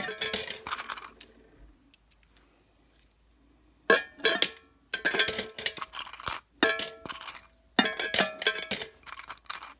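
Coins dropped through the slot of a metal tin coin bank, clinking and ringing against the tin and the coins already inside. A short run of drops comes first, then a pause of about three seconds, then a steady run of drops in quick clusters.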